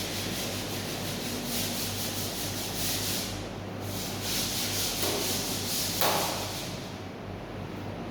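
Rough rubbing strokes against a surface, uneven and repeated, the loudest about six seconds in, over a steady low hum.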